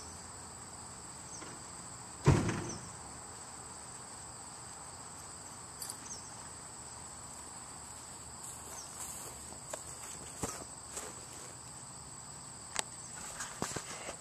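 Quiet background with a faint steady high-pitched tone and hiss, broken by one sharp thump about two seconds in and a few faint clicks near the end.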